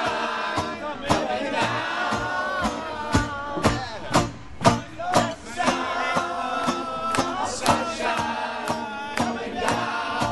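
A crowd singing along to a live song's chorus over the band's music, with many irregular sharp percussive hits.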